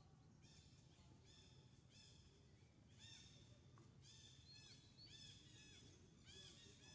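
Faint, high chirping calls repeated in quick series, each a short rising-then-falling note, coming thicker from about halfway, over a low outdoor hum.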